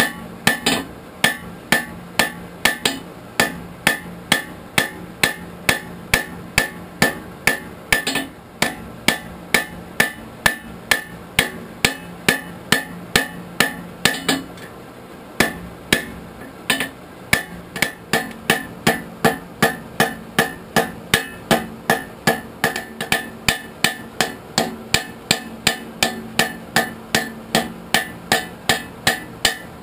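A hand hammer striking red-hot steel on an anvil in a steady rhythm of about two to three blows a second, with a short pause about halfway through. A steady low hum runs underneath.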